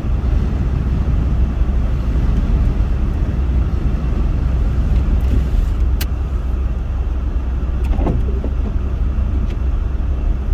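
Steady low rumble inside a moving car's cabin as it drives on a snow-covered highway, with one sharp click about six seconds in.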